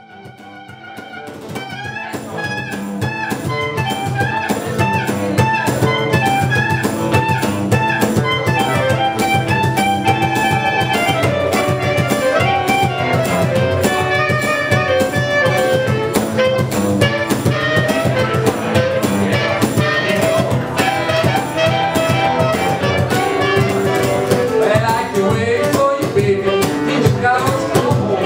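Live acoustic blues band playing: a clarinet carries the melody over acoustic guitar and a steady percussion beat. The music fades in over the first few seconds.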